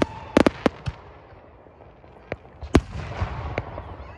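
Aerial fireworks bursting: a quick cluster of sharp bangs in the first second, a lull, then one loud bang just under three seconds in, followed by a spell of smaller crackling pops. A high steady tone fades out in the first half second.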